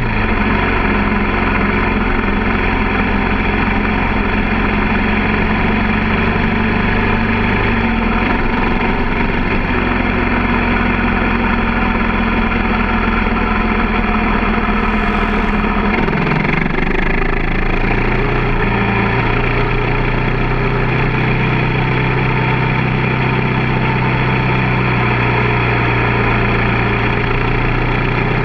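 Motor vehicle engine running at a steady cruising speed on the road, its pitch holding steady, dipping about halfway through and then settling on a new steady note.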